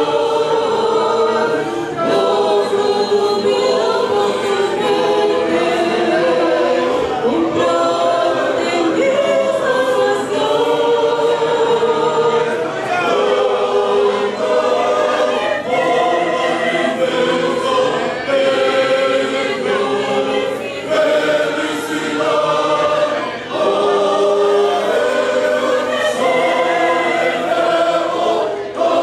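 Large church choir of women and men singing a hymn in several parts, with sustained chords that change every second or so.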